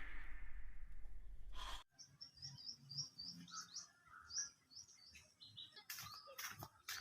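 Small birds chirping faintly in short, repeated high calls. A hiss fades out in the first two seconds, and a few sharp clicks come near the end.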